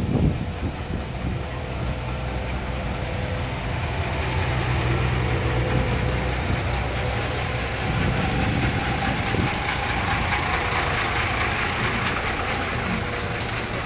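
Vintage single-deck bus and wartime military vehicles (an armoured scout car and a Jeep) driving slowly past over cobbles, engines running steadily. The sound swells as the bus goes by close at hand, about two thirds of the way through.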